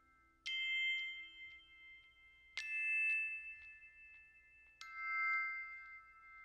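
Background music: three struck bell-like notes about two seconds apart, each ringing on and slowly fading.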